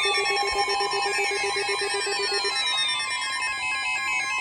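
Electronic emergency alert tones: a rapid beeping tone that stops a little past halfway, layered over several tones sliding slowly down in pitch.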